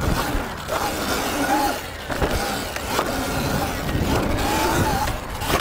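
Sur-Ron Light Bee electric dirt bike's motor whining, its pitch rising and falling again and again as the rider accelerates and eases off over the pump track's rollers, over the rush of tyres on asphalt.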